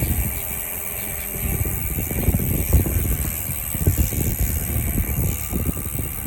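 Hope Pro 4 rear hub freewheeling, its freehub pawls giving a loud, steady ratcheting buzz. Wind rumbles on the microphone throughout.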